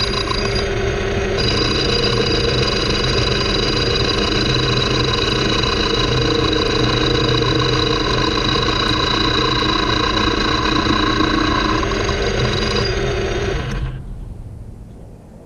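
Metal lathe running under power, a steady machine hum with a whine of gears. About fourteen seconds in it is switched off and winds down.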